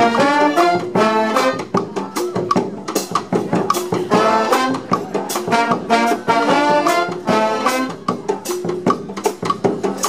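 Street brass band playing an upbeat instrumental: saxophones and brass horns carrying the tune over a steady bass drum and snare beat.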